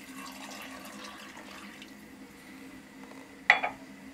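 A mug of water poured into a steel pot of sprouted beans in sauce, splashing for about two seconds. A single sharp knock about three and a half seconds in.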